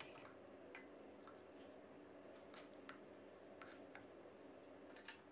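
Near silence with a few faint, scattered clicks of metal tongs and a metal strainer knocking against a pot while blanched pork is lifted out of simmering water.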